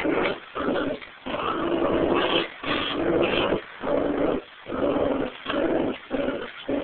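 A Pomeranian and a terrier mix growling over a tug toy in play: a string of rough growls broken by short pauses.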